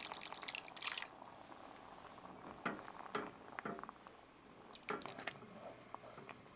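Thin liquid poured from a glass measuring cup into a pot of thick lentil soup for about the first second. Then a wooden spoon stirs the soup, with a few light knocks and scrapes against the enamelled pot.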